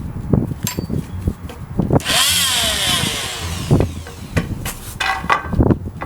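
Oscillating multi-tool saw cutting into a wooden plank for about two seconds in the middle, its buzz sliding up and down in pitch. Before and after the cut, the wood and tool knock and clatter as they are handled.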